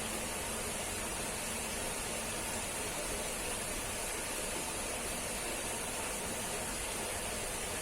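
Running water under vines, a steady, even rushing with no change.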